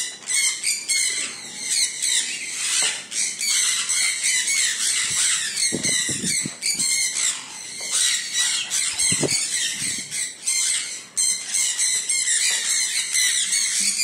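A flock of sun conures calling all together: a dense, unbroken chorus of shrill squawks and screeches.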